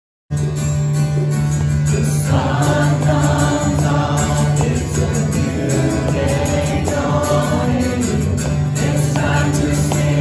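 A group of voices singing a worship song together with instrumental accompaniment and a steady beat. It starts abruptly and cuts off abruptly.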